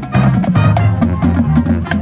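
High school marching band playing its field show: brass over a steady beat from the drumline, with many sharp drum strokes.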